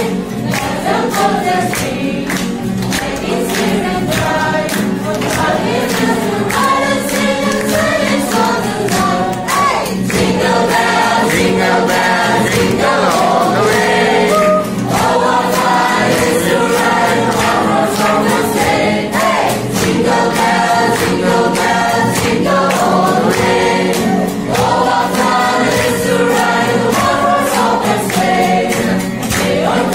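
A group of young men's and women's voices singing a Christmas song together, accompanied by a strummed acoustic guitar.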